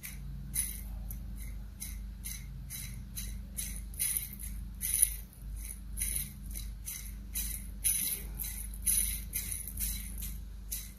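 Worn connecting-rod big end on a Honda CD70 crankshaft clicking and rattling as the rod is rocked and turned by hand on the crankpin: an uneven run of light metallic clicks, about three a second. The clatter comes from play in the worn big-end bearing.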